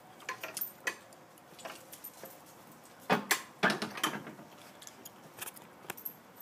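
A gate being shut and latched: a run of light metallic clicks and rattles, with a loud clatter of several strokes about three seconds in.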